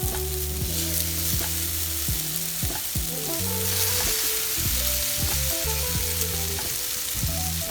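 Custard-soaked brioche French toast sizzling steadily in vegetable oil on a hot flat griddle.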